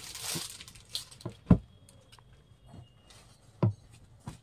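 Silk sarees being handled: a brief rustle of fabric, then several soft, dull thumps as a folded saree is put down onto the pile. The loudest thump comes about a second and a half in.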